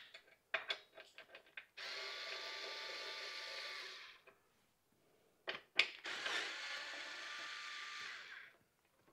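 Small handheld electric screwdriver running twice, about two and a half seconds each time, backing out the 6 mm bolts that hold the rear fender and sissy bar. There are a few light clicks before each run.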